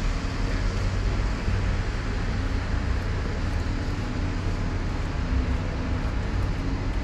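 Steady road traffic noise: a low engine rumble with an even hiss above it.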